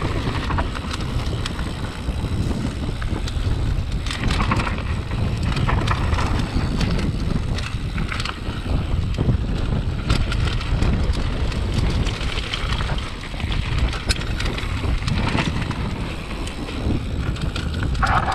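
Mountain bike rolling fast down a dry dirt trail: heavy wind noise on the microphone over the crunch of tyres on loose dirt, with short rattles and knocks from the bike over bumps.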